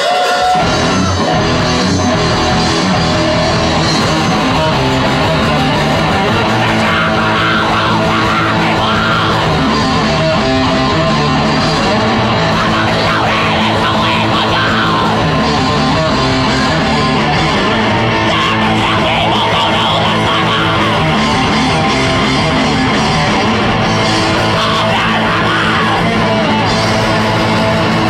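Death metal band playing live and loud: distorted electric guitar, bass guitar and drums, with the drums and bass coming in all at once right at the start.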